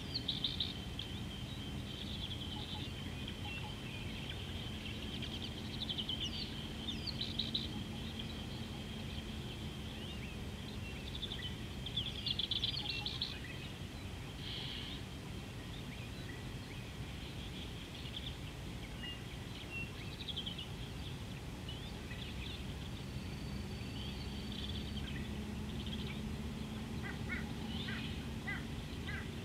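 Wild birds chirping in short bursts every few seconds, over a steady low rumble of background noise and a faint steady high tone.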